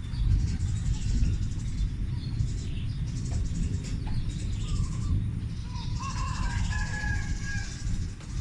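A continuous low rumble like distant thunder, of unexplained origin, going on without a break. Birds chirp over it about six seconds in.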